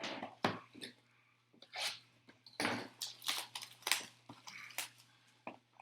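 Trading-card pack wrappers being torn open and handled: a series of short, irregular crinkles and rustles.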